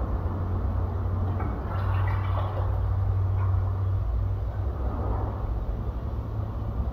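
Engine oil draining from the car's sump into a wheeled waste-oil drain funnel: a liquid trickle over a steady low hum, with a few light clicks near the middle.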